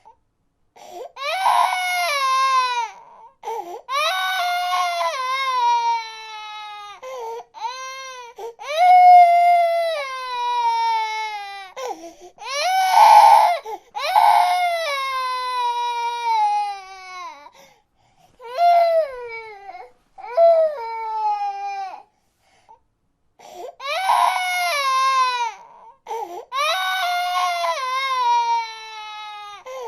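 A baby crying in a string of high-pitched wails. Each wail falls in pitch and breaks off, with short catches of breath between them and a brief silence about two-thirds of the way through.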